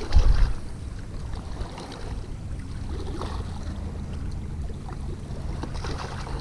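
Distant motorboat engine running with a steady low drone. A brief low rumble of wind or handling on the microphone comes just after the start.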